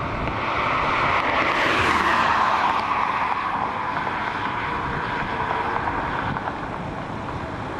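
A vehicle passing on the road, its tyre and engine noise swelling to a peak about two seconds in, then dropping in pitch and fading away.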